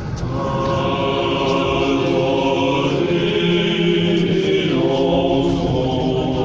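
A choir singing slow, long-held notes, moving to a new chord about three seconds in and again near five seconds.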